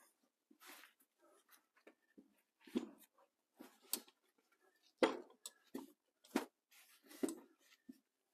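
Scattered knocks and clinks as a Suzuki TS185 engine's crankcases and hand tools are handled on a workbench, during removal of the case bolts. Several sharper knocks, the loudest about five seconds in.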